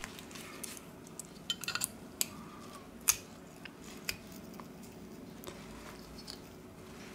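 Scattered small clicks and ticks of metal tweezers and fingers handling a smartphone motherboard and its metal shield cans, the loudest about three seconds in, over a faint steady hum.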